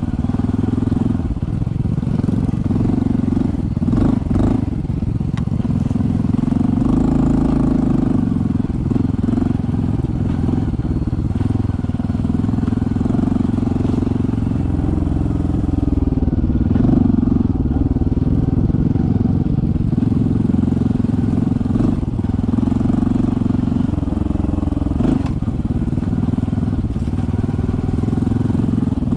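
Honda CT125's single-cylinder four-stroke engine running at low speed on a trail, its pitch rising and falling a little with the throttle, with a few brief clatters.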